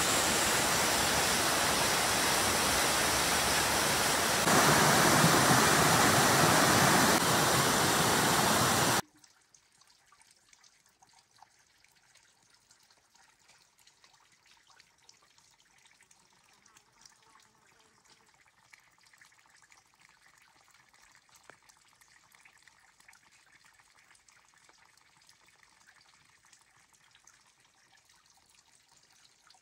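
Waterfall on a mountain stream rushing steadily over rock, louder from about four and a half seconds in. About nine seconds in it cuts off abruptly to near silence.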